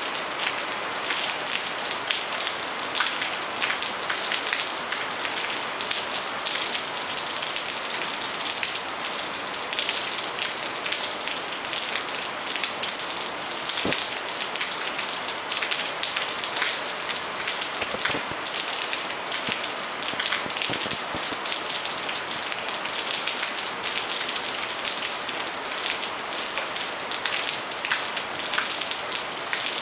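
Steady rain falling: a dense, even hiss of many small drops, with a few louder single drips now and then.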